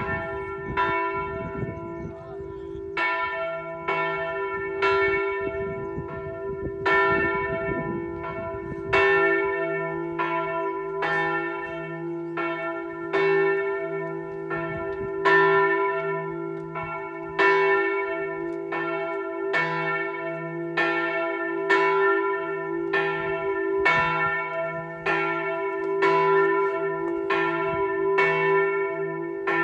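The largest bell of a six-bell ring in E3, cast by Rafanelli of Pistoia, swung in full 'distesa' ringing, its clapper striking about once a second. Each stroke rings on into the next, with a low hum that builds in about nine seconds in. This is the weekday noon bell.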